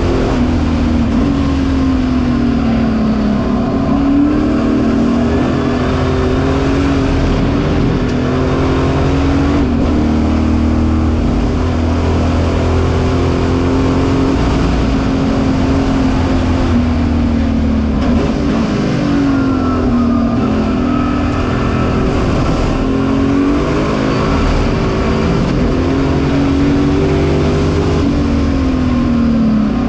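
Engine of a 1965 Alan Mann Ford Mustang race car, a V8, heard from inside the cockpit at racing speed. Its pitch rises under acceleration and drops sharply a few times at lifts and gearchanges before climbing again.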